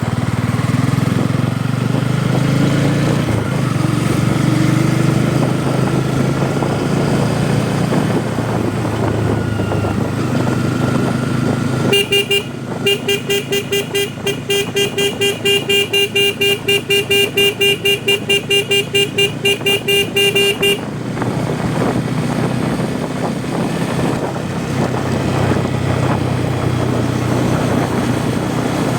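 Bajaj Pulsar N250's single-cylinder engine running on the move, its pitch rising and falling with the throttle. About twelve seconds in, a horn starts sounding in fast, even pulses, about four or five a second, for roughly nine seconds, louder than the engine, then stops.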